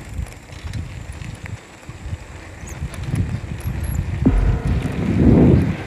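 Wind buffeting the microphone of a riding cyclist's camera, in uneven low gusts that are loudest near the end. About four seconds in, background music cuts in suddenly.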